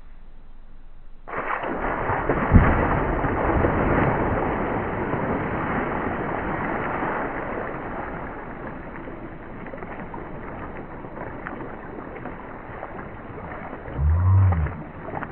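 A heavy man plunges into a plastic kiddie pool filled with ice water. A sudden big splash comes a little over a second in, with a sharp thump about a second later, then water and ice slosh and splash as he thrashes, slowly settling. Near the end he lets out a short low vocal sound.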